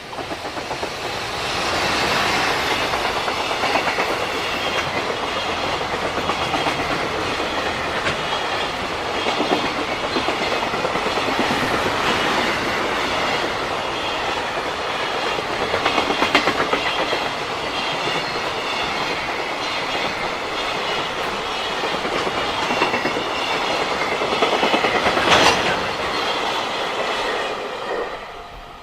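JR Freight train rolling past, with a steady clickety-clack of wagon wheels over the rail joints and one sharp clank about 25 seconds in. The sound drops away just before the end as the train clears.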